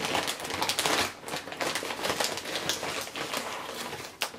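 Crinkling and rustling of a plastic tortilla chip bag as a hand rummages inside it, a dense run of crackles, busiest in the first second or so.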